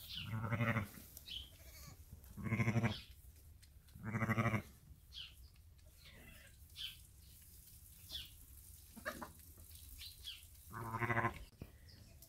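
Ewe giving four short, low bleats to her newborn twin lambs, the soft calls a ewe makes to bond with lambs just after birth: three close together at first, a fourth after a long gap.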